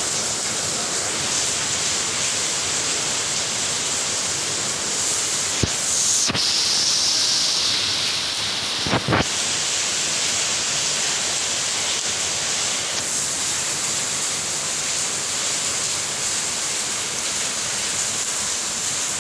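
Steady heavy rain, an even hiss, with a few short knocks around six and nine seconds in.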